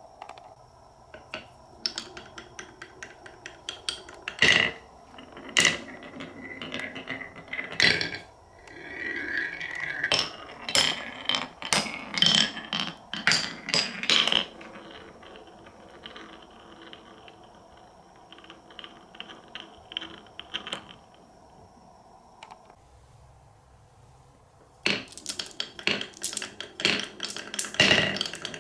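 Glass marbles rolling down curved wooden track pieces, with sharp clicks and clacks as they hit the joints and a rolling rumble as they run round a ridged wooden bowl. After a quieter stretch, a rapid run of clacks starts near the end as marbles drop from hollow to hollow along a wooden track.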